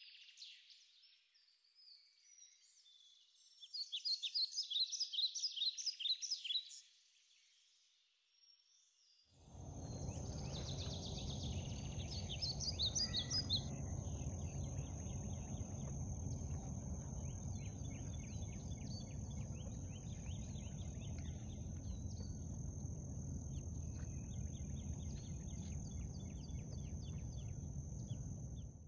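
Outdoor wildlife sounds: insects and birds chirping in quick high trains at first. After a few seconds of near quiet, a steady low rumble comes in, with a constant high-pitched insect drone and scattered chirps over it.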